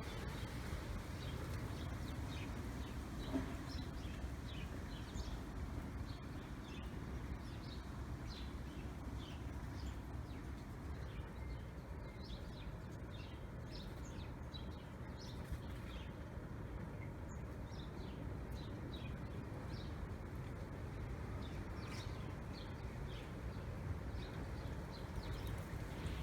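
Wind buffeting the microphone as a steady low rush, with small birds chirping in short high notes again and again throughout. A single brief knock comes about three seconds in.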